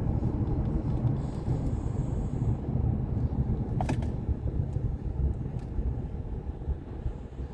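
A vehicle driving along: a steady low rumble of engine and road noise, with a single sharp click about four seconds in.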